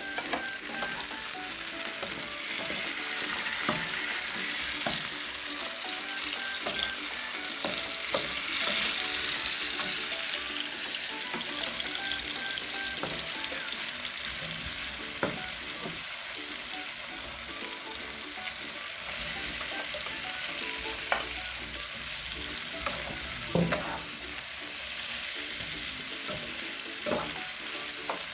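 Bitter gourd and egg sizzling steadily in a frying pan as they are stir-fried. A spatula knocks and scrapes against the pan now and then, a few times more sharply near the end.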